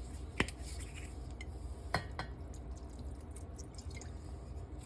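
Light kitchen clinks as liquid sauce ingredients are spooned into a bowl: two sharp taps, about half a second in and about two seconds in, over a low steady hum.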